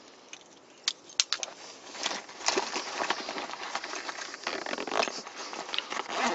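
A few sharp clicks as a folding knife is handled, then rustling and crackling of the nylon backpack's top pocket as hands stow the knife and work the pocket.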